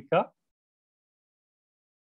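The last syllable of a spoken word right at the start, then dead silence with no background noise at all.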